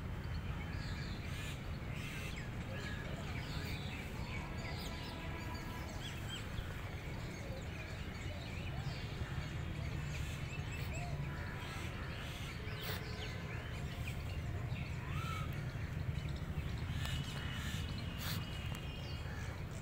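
Outdoor park ambience: many birds calling over a steady low rumble, with a few short knocks.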